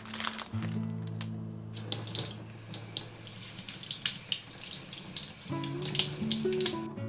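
Water running from a kitchen tap into a sink, with a scatter of small knocks and clicks, over soft background music.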